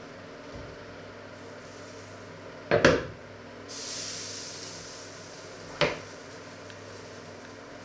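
The heavy lid of a red enamelled cast-iron casserole is lifted off and set down with a loud metallic clank. A hiss follows, starting suddenly and fading over a couple of seconds, and then a second, shorter clank. A steady low hum runs underneath.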